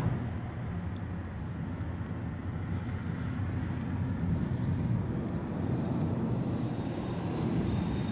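Steady engine and tyre noise inside the cabin of a moving Citroën car at highway speed.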